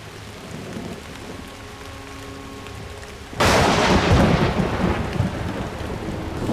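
Steady rain, then a sudden loud thunderclap about three and a half seconds in that rumbles on and fades over the next two seconds.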